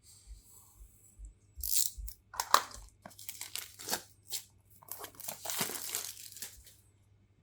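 Product packaging being opened by hand: irregular tearing, crinkling and rustling of paper and wrapping, with a sharp click about two and a half seconds in.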